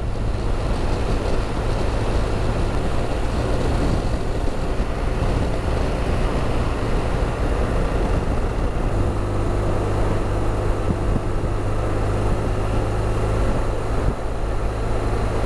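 BMW R1200RT boxer-twin motorcycle cruising steadily at highway speed, its engine note mixed with wind rush and road noise. The engine note gets a little stronger about nine seconds in.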